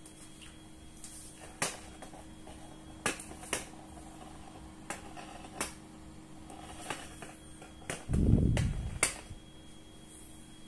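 Sharp separate clicks, about eight in all, as hands work at the rocker switches on the back panel of a bottom-loading water dispenser, over a steady low hum. About eight seconds in, a low rumble lasting about a second is the loudest sound.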